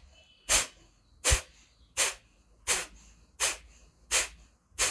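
Kapalbhati breathing: a run of sharp, forceful exhalations through the nose, seven evenly spaced puffs at about three every two seconds, with silent passive inhalations between.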